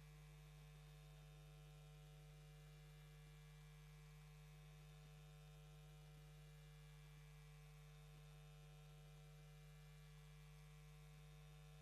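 Near silence with a faint, steady low electrical hum and nothing else.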